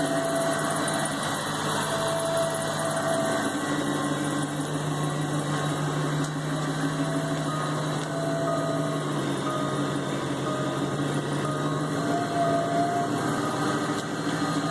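Jaguar XKR engine running steadily, with a higher whining tone that comes in for about a second and fades, several times over, the strange noise the owner is showing.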